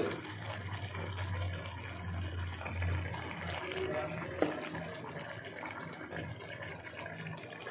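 A pot of spiced water with potatoes bubbling on high heat, a steady watery sound under a low hum, with one short knock about four and a half seconds in.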